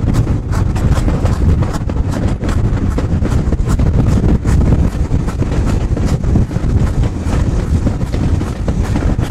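Train running along the track: a steady low rumble with repeated clicks of the wheels over the rail joints.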